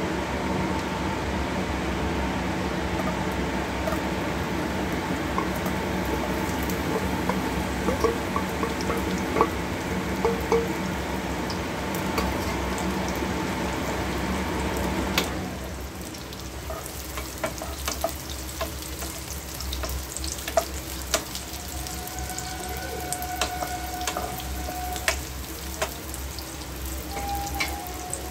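Food frying in a pan while it is stirred, with clicks and scrapes of a spoon against the pan. About halfway through, the sound changes abruptly to a quieter sizzle with more sharp clicks.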